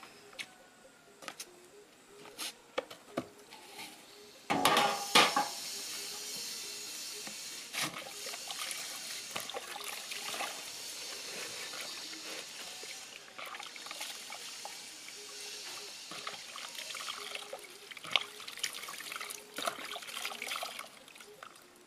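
Water splashing and trickling in a plastic basin as a whole pineapple is washed by hand, with water scooped over the fruit and running back off it into the basin. A few light knocks come first, then the splashing starts loudly about four and a half seconds in and goes on unevenly.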